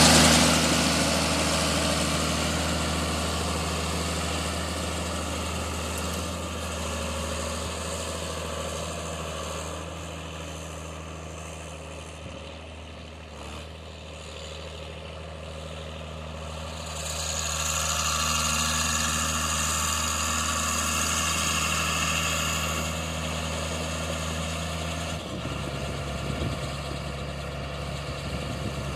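A 1990 John Deere 4955 tractor's six-cylinder diesel engine idling steadily. Its note turns rougher about three-quarters of the way through.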